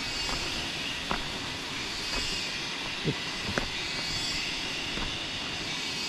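Steady rushing of a tall waterfall in the distance, with a cicada chorus that swells and fades about every two seconds. A few light taps near one, three and three and a half seconds in.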